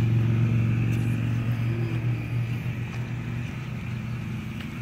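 An engine running steadily with a low, even hum that slowly grows fainter.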